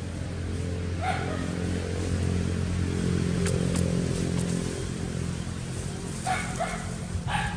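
A motor engine hums steadily, swelling in the middle and fading about five seconds in. There is one short call about a second in and three more near the end.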